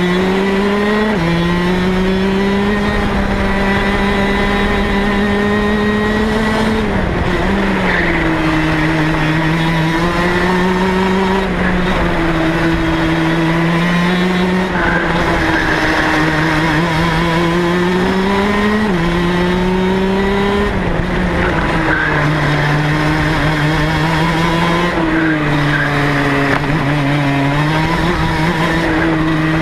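Rotax DD2 kart's 125 cc two-stroke engine at racing speed, heard from on board the kart. Its pitch climbs steadily along the straights and drops sharply several times going into corners.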